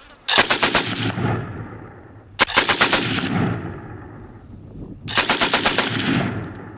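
A machine gun firing three short bursts of rapid automatic fire, about two and a half seconds apart, each burst trailing off in a long echo.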